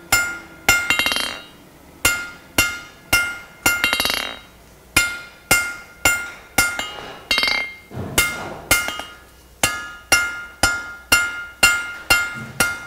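Hand forging hammer striking red-hot steel on an anvil, drawing out a leaf: runs of blows about two to three a second, each with a bright ring from the anvil, broken by short pauses.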